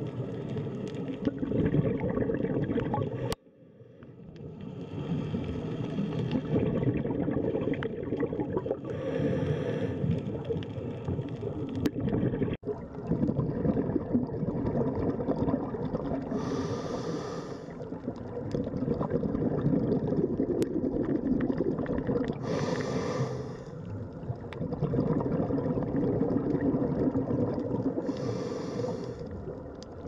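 Scuba diver breathing through a regulator underwater: a hiss on each breath about every five to six seconds, with a steady rumble and gurgle of exhaled bubbles in between. The sound breaks off abruptly twice.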